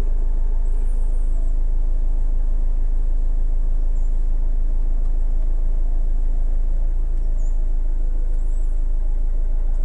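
Car engine idling with a steady low hum, heard inside the cabin with the air conditioning running.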